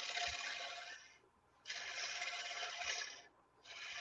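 Turning tool cutting the face of a spinning maple burl platter on a wood lathe: a hissing shaving sound in three passes, each a second or two long, with short breaks about a second in and again near three seconds.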